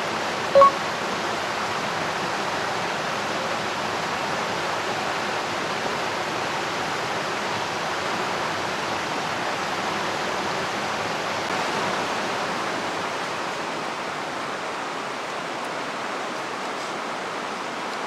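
Steady rushing of a nearby stream, with a single short ringing clink about half a second in.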